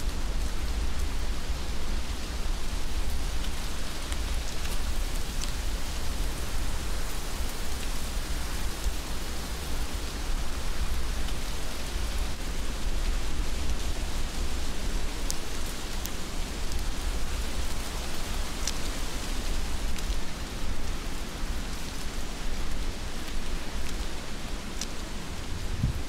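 Heavy rain falling steadily, an even hiss over a low rumble, with a few sharp ticks of single drops landing close by.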